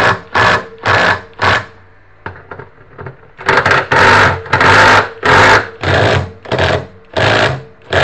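A run of rhythmic scraping strokes, each about half a second long and about one and a half to two a second, stopping for about two seconds near the first third and then picking up again.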